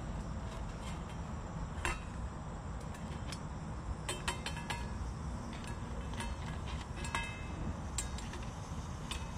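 Light clicks and clinks of metal cooking gear at an outdoor grill, scattered a few at a time with a brief ring after some, over a steady low rumble.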